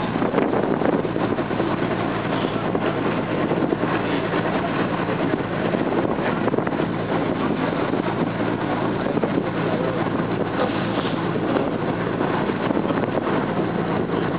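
Steady noise of a cruise boat under way, its engine droning low beneath wind buffeting the microphone.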